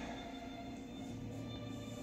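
Music playing from a television: sustained tones over a low steady note.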